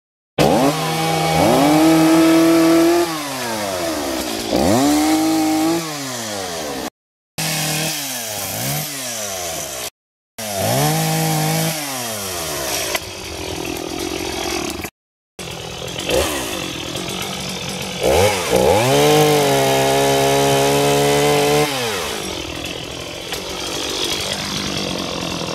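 Petrol chainsaw revving up to full speed and cutting through fallen branches, held at high revs for a second or two at a time, then dropping back to idle, about four or five times. The sound breaks off abruptly three times.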